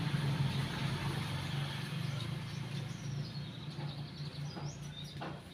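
A motor vehicle's engine running with a steady low hum, slowly fading away. A bird chirps a few times in the second half.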